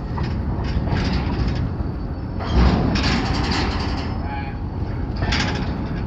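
Freight cars rolling slowly in a switching move: a low rumble of wheels on rail with scattered metallic clanks, and a heavier clunk about two and a half seconds in.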